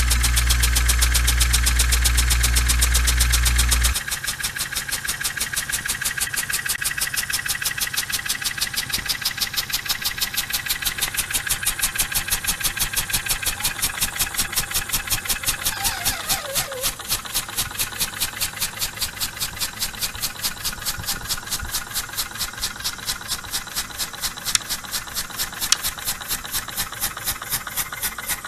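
Small model steam engine running, its cylinder puffing in a fast, even beat. For the first few seconds a loud, low, steady hum lies under it and then stops suddenly.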